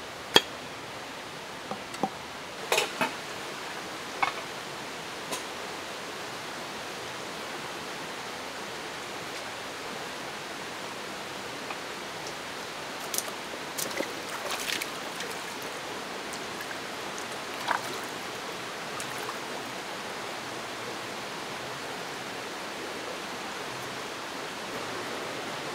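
Steady rush of a shallow forest stream running over rocks. Scattered sharp clinks and knocks sound over it, the loudest just after the start as a glass jar's lid is handled, and a few more about halfway through.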